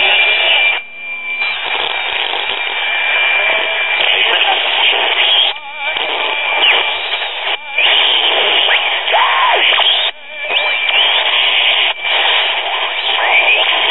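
Hiss and static from a Zenith Royal Ten eight-transistor pocket AM radio being tuned to the weak carrier of a vintage one-tube wireless phonograph transmitter. A steady high whistle runs through it, a few whistles slide in pitch, and the sound drops out briefly three times. The signal is just barely coming through and the tuning is very touchy.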